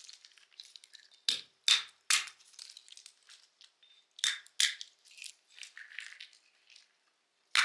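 Walnut shells cracking and crunching as they are broken open by hand: several sharp cracks with dry shell pieces crackling and rattling in between.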